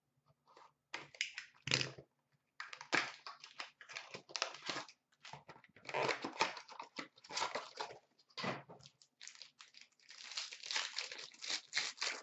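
Cardboard box and pack wrapper of a 2017-18 Upper Deck SP Game Used hockey box being torn open by hand, with crinkling packaging and cards being handled. It comes as an irregular run of short rips and rustles.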